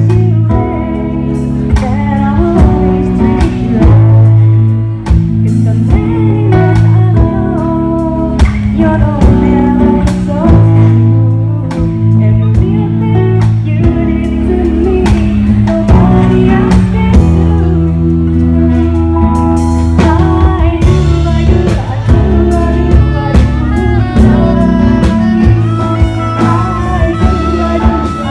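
Live band performing a song: a woman singing through a microphone to acoustic guitar, with bass guitar and drums.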